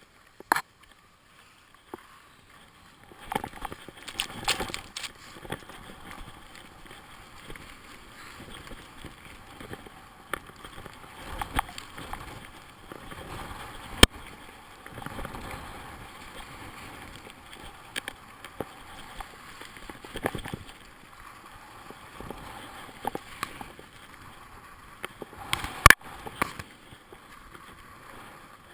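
Skis running and scraping over snow on a descent, a swishing noise that swells and fades with the turns. Several sharp knocks stand out: one about half a second in, one about halfway through and one near the end.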